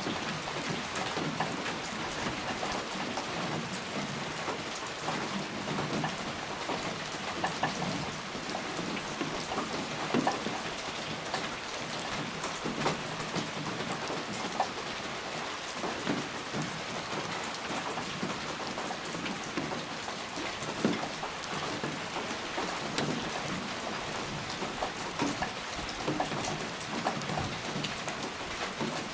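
Steady rain falling, with many individual drops pattering sharply over a continuous hiss.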